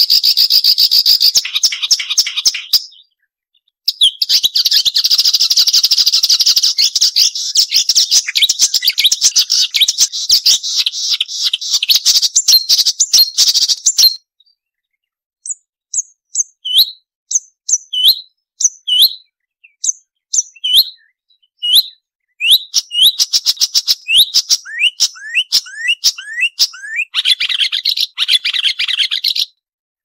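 Marsh warbler singing a fast, varied song of rapid trills and chatter. It breaks off briefly after about three seconds and again about fourteen seconds in. From about 15 to 22 seconds it gives separate sharp notes about twice a second, then goes back to dense chattering.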